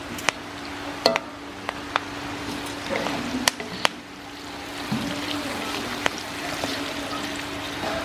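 Metal spatula scraping and clinking against a wok as spice paste with lime leaves, galangal and lemongrass is stir-fried. There are a handful of irregular sharp clinks over a steady sizzle-like hiss and a low hum.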